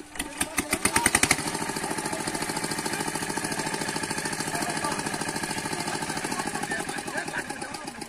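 A small engine running with a rapid, even chugging beat. It comes in abruptly, is loudest for the first second or so, then settles to a steady rhythm.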